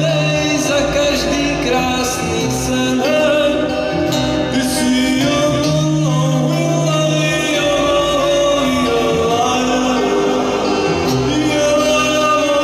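Live music: an electric keyboard playing long sustained chords over slow-changing bass notes, with a voice singing over it.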